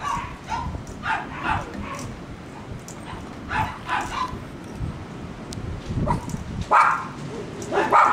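Dog yipping: short, high yips, often two in quick succession, repeated several times, the loudest two near the end.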